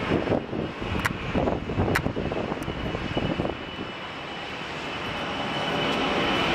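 An airliner's engines: a steady hiss with a thin high whine that comes in about halfway and grows louder as the aircraft comes closer.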